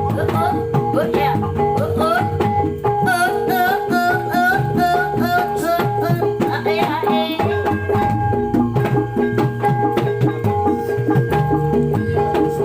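Javanese folk ensemble music for a kuda lumping (horse-dance) performance: drums keep a steady beat under sustained ringing pitched tones, with a wavering high melody line in the middle of the stretch.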